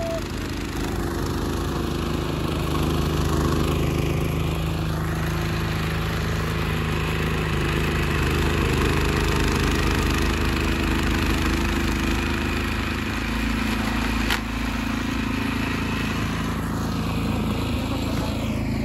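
Craftsman two-stage gas snowblower running steadily as it is pushed through deep snow, throwing snow out of its chute. Its engine note shifts a little about two-thirds of the way through, and there is a single sharp click just after.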